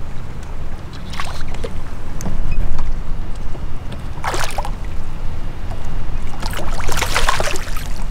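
A largemouth bass being fought on a bent fishing rod beside a bass boat. A steady low rumble runs underneath, with short noisy bursts about a second in and past the middle, and a longer, louder burst near the end as the fish comes up close to the boat.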